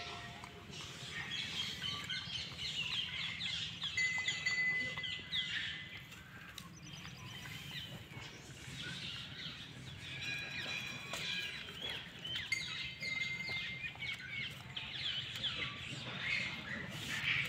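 Small birds chirping and calling all around, many short rising and falling chirps with a few held whistle notes, over a faint low hum.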